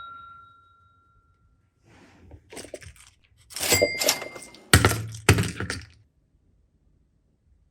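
Small hard objects being handled on a surface: a ringing tone fades out, then a few soft clicks, a clatter with a brief ring, and two solid thunks, after which it goes quiet.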